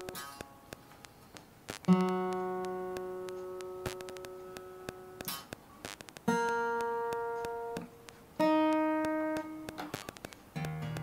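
Acoustic guitar being tuned: single strings plucked one at a time, three times, each left to ring and fade, with small clicks in between. Near the end, lower strings are sounded together.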